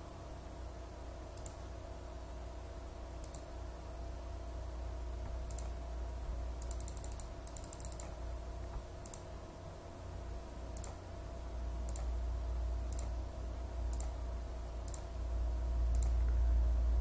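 Clicking from a computer mouse and keyboard, single clicks every second or so, with a quick run of clicks about seven seconds in, over a low steady hum.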